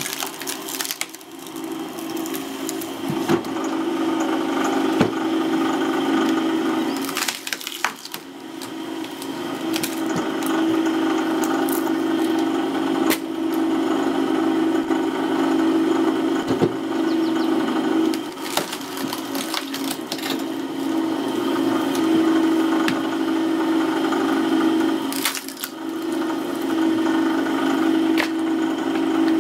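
Screw-cone log splitter: its motor hums steadily as the spinning threaded cone is driven into logs, the wood splitting with several sharp cracks and splintering noise. The hum dips briefly a few times.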